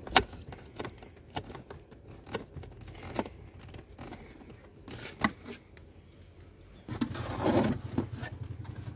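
Screwdriver working the screws of a plastic tail-lamp bulb holder, with scattered small clicks and taps of metal on plastic. From about seven seconds in, a louder scraping rustle as the plastic lamp unit is lifted and handled.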